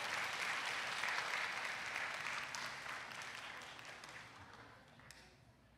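Audience applauding, the clapping dying away over the last two seconds or so.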